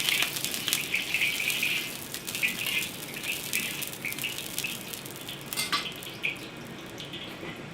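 Cooking oil sizzling and crackling in a hot pan. A dense crackle of small pops thins out after about two seconds.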